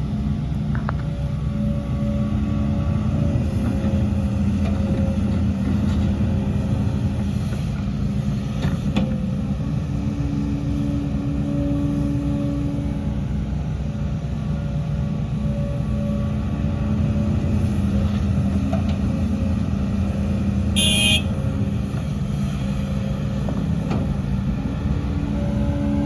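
Heavy diesel machinery of an excavator and dump trucks running steadily, the engine note shifting as it works, with a few short clanks and one brief high squeal about three quarters of the way through.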